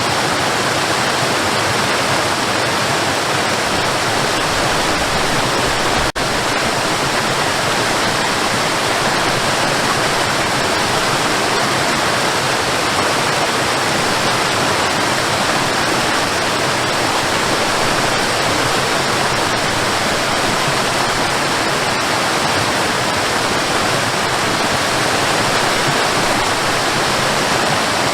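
Waterfall: water falling and splashing in a steady, dense rush, with a brief dropout about six seconds in.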